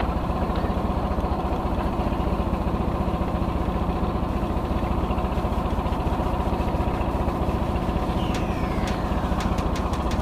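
Boat engine running steadily at a constant speed, with an even, rapid pulsing throb.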